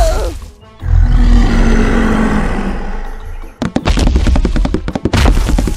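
Added sound effects: a loud low rumble that fades over about three seconds, then a rapid run of sharp thuds and crackles.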